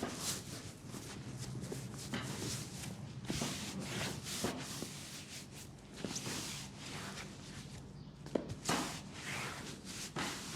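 Hands working over a leg in a massage: irregular rubbing and swishing strokes on skin, with now and then a short sharp pat or tap.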